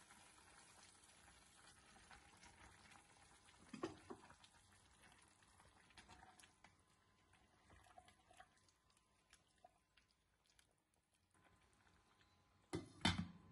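Faint simmering of a steel pot of vegetable broth, with soft knocks and ticks as sliced fennel goes in and is stirred with a wooden spatula. Near the end, a louder clatter as a glass lid is set on the pot.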